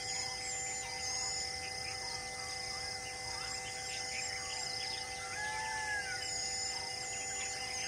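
Wild birds chirping: repeated short, high-pitched chirps, with a couple of lower whistled, arching calls about five to six seconds in, over a steady high-pitched hum.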